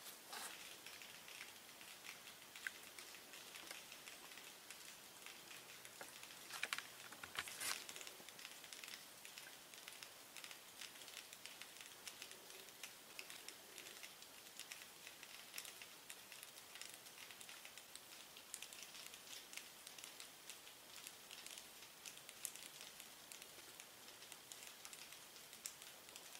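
Faint crackling and fizzing of car-wash snow foam as its bubbles pop and it slides and drips down the paintwork, with a few louder crackles about seven seconds in.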